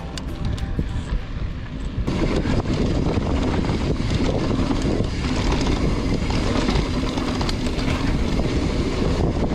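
Mountain bike riding a rough dirt trail: wind noise on the microphone over tyre rumble and many rattling clicks from the bike, getting louder about two seconds in.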